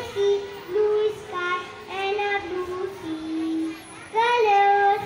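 A child singing a simple song melody, with a long held note a little after three seconds in and a louder held note about four seconds in.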